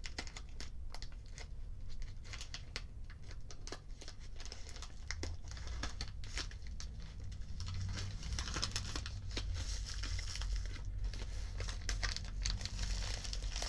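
Scissors cutting open a padded plastic Priority Mail flat rate envelope: crinkling and crackling of the plastic mailer with small clicks of the blades, getting busier in the second half.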